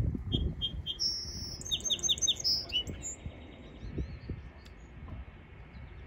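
A small songbird singing one phrase of about three seconds: three short high notes, a held high whistle, a quick run of chirps and a final held note, ending about halfway through. Low rumbling noise runs underneath.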